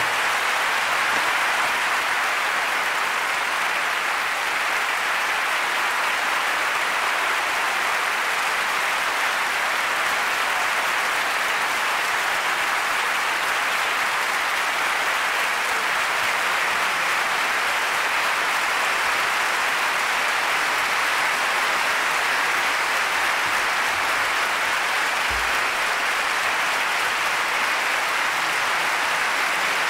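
Concert audience applauding steadily, a sustained, even clapping that holds at the same level throughout.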